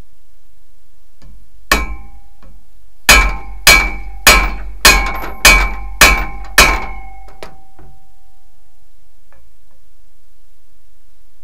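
Hammer blows on steel, ringing metallically: a single blow, then a run of seven steady blows a little under two a second. Typical of hammering a U-joint out of a drive shaft yoke without a press.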